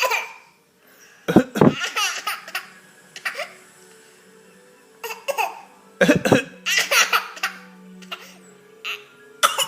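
Baby laughing hard in bursts, each set off by short fake coughs: one round about a second in, another about six seconds in.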